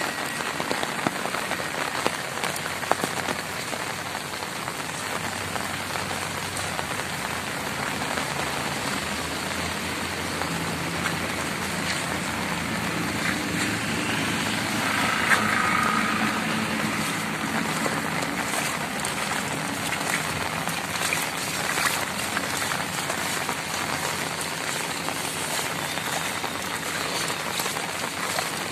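Heavy rain falling steadily, an even dense hiss of drops.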